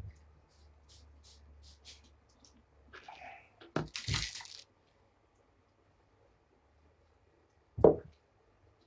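Crinkling and tearing of a small packet handled close by, lasting about a second, then one sharp thump near the end.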